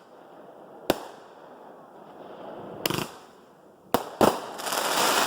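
Consumer fireworks going off: single sharp bangs about a second in, near three seconds and about four seconds in, then a dense crackle of many small reports near the end.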